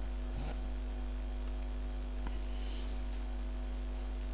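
Steady electrical mains hum with a faint, rapid, evenly spaced high ticking, about eight ticks a second.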